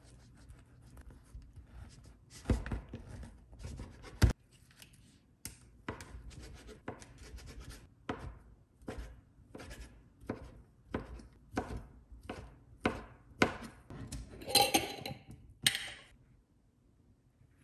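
Kitchen knife sawing through a bagel on a plastic cutting board, ending in a sharp knock on the board about four seconds in. Then the knife chops sliced ham on the board, about two chops a second, with a short rustle near the end.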